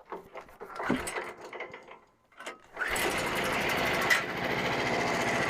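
Small gasoline engine of a Frontier OS27 portable bandsaw mill, coming in abruptly about three seconds in and then running steadily with a fast, even pulse. Before that, a few faint knocks of handling.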